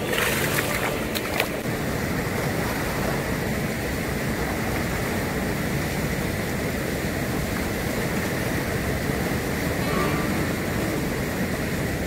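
Steady wash of shallow sea water at a rocky shore, with a short burst of splashing in the first second and a half as a caught fish thrashes in the shallows.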